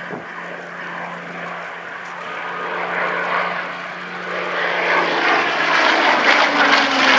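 Hawker Hurricane IIC's Rolls-Royce Merlin V12 piston engine droning on a display pass. The sound grows louder from about halfway through, and near the end the pitch falls as the fighter goes by.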